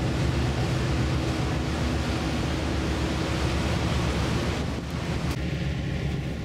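Steady wind rushing over the microphone together with sea and wake noise, with a low steady ship's engine hum underneath. About five seconds in the wind noise drops off suddenly.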